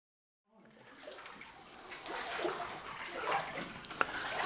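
Silent for the first half second, then water splashing and sloshing fades in and builds, with two sharp clicks near the end.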